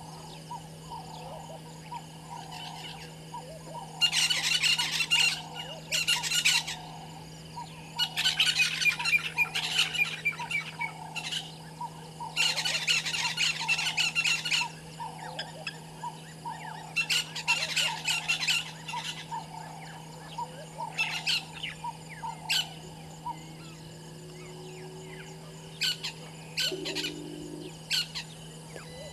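Birds calling in loud, raucous bursts of a few seconds each, four or five times, over a soft low call repeated about once a second and a steady low electrical hum.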